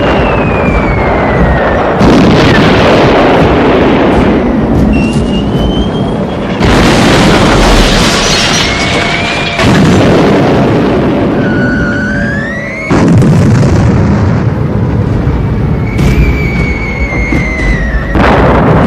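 Aerial bombardment: bomb whistles gliding in pitch, each followed by a heavy explosion with a long tail. Five blasts strike suddenly, a few seconds apart.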